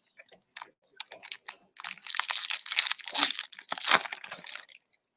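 Foil wrapper of a hockey trading-card pack crinkling as it is torn open by hand: a few light clicks, then dense crinkling from about two seconds in until near the end.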